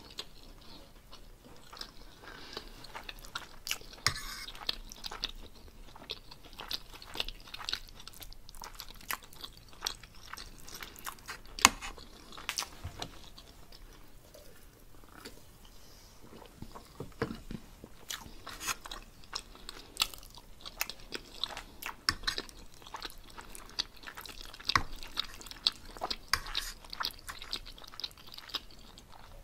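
Close-up chewing and wet mouth sounds of someone eating pressure-cooked pork roast with cabbage and potatoes, with many small clicks and smacks. One sharp click stands out about twelve seconds in.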